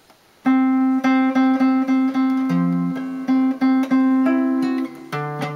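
Nylon-string cutaway classical guitar played fingerstyle, sounding a D13 chord voicing with the ninth, starting about half a second in. One note is plucked again and again, about three times a second, while the lower notes shift twice.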